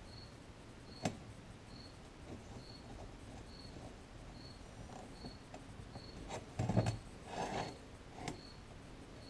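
Handling noises as a metal butt cap is twisted and pressed onto a hunting knife's rubber handle: a sharp click about a second in, then a cluster of rubbing and knocking past the middle. A faint high chirp repeats about every 0.7 seconds throughout.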